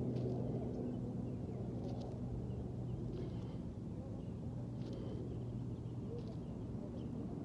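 Steady low mechanical hum and rumble, like traffic or an idling engine, with a few short bird chirps over it every second or two.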